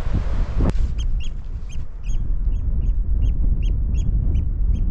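A bird calling over and over in short, sharp high notes, about two or three a second, starting about a second in, over a heavy rumble of wind on the microphone. A single click comes just before the calls begin.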